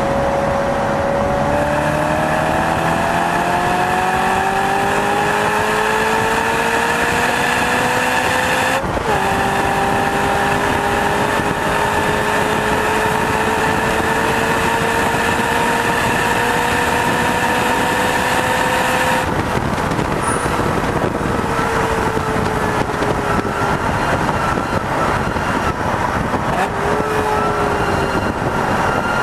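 A car's engine pulls hard with its pitch climbing steadily. About nine seconds in the pitch drops suddenly at an upshift, then climbs again for another ten seconds, after which the engine note drops away and falls as the car slows. Wind and road noise on the microphone sit under it throughout.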